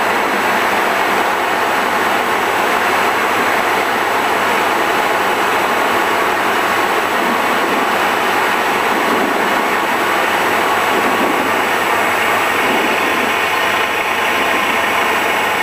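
Single-engine light aircraft's piston engine and propeller running steadily, heard from inside the cabin as a loud, even drone while the plane rolls along the runway.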